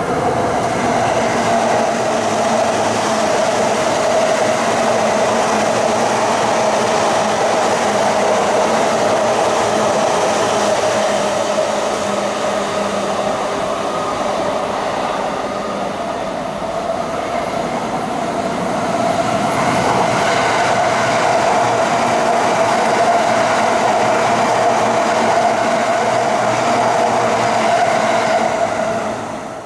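JR East E353 series limited express electric train running on the rails: a loud, steady noise of wheels and running gear that eases slightly about halfway through and then builds again.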